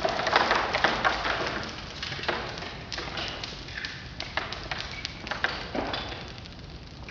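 Marbles clattering and knocking across the floor: a scatter of irregular sharp clicks and taps, densest and loudest in the first second or so, thinning out after.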